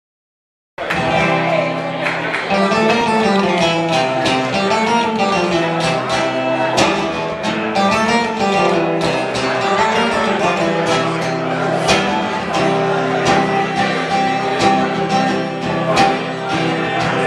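Acoustic guitar played solo, strummed chords with a moving line of picked low notes; it cuts in abruptly about a second in.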